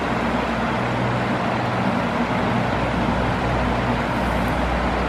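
Fast, shallow mountain river rushing steadily over rocks and boulders.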